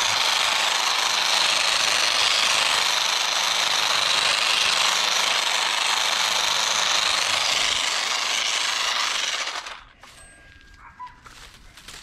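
Electric garden trimmer running steadily, cutting through plant growth, then switched off and stopping abruptly a little under ten seconds in.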